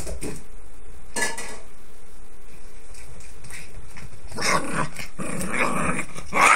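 Papillon growling in play, in short stretches: a brief one about a second in, then longer ones past the middle, the loudest just before the end.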